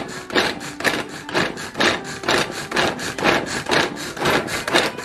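Manual pull-cord food chopper pulled over and over, its blades spinning through radishes in the plastic bowl, with a rasping stroke about twice a second.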